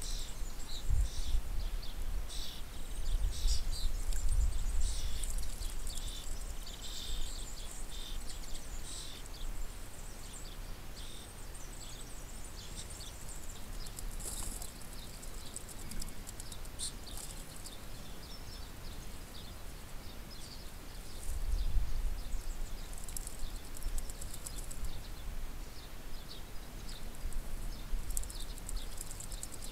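Outdoor birdsong: many short, high chirps and chatter, thickest in the first several seconds and scattered after that. Low wind rumble on the microphone, strongest near the start and again about two-thirds of the way through.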